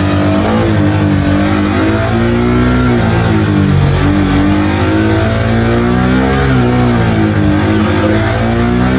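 Honda fuel-injected motorcycle engine running under load on a dynamometer at about 5,500–6,000 rpm. Its pitch dips a few seconds in, then climbs and wavers.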